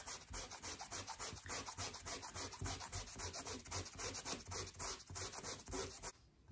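Small folded piece of sandpaper rubbed quickly back and forth over denim jeans, a run of rhythmic scratchy strokes as it wears through the blue threads to raise the white cross-threads. The rubbing stops shortly before the end.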